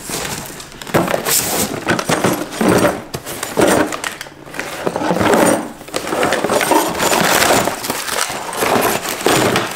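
Bubble wrap and cardboard packaging rustling, crinkling and scraping in irregular bursts as it is handled.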